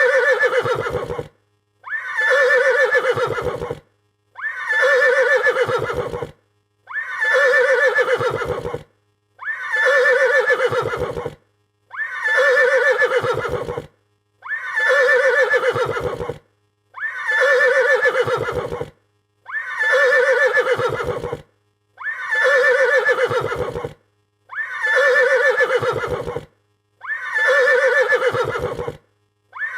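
A frightened horse whinnying, the same neigh repeated about every two and a half seconds with short silences between, each call ending in a low flutter.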